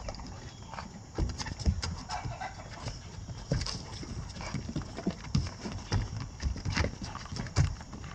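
Two livestock guardian dogs, an Anatolian shepherd and a Great Pyrenees, play-wrestling on a wooden subfloor, their paws thumping and scuffling in quick irregular knocks.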